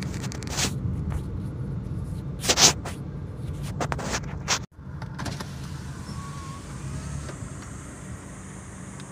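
Low engine and road rumble heard from inside a moving car, with a few sharp clicks and knocks, the loudest about two and a half seconds in. The sound cuts out abruptly about halfway through and comes back as a quieter steady rumble.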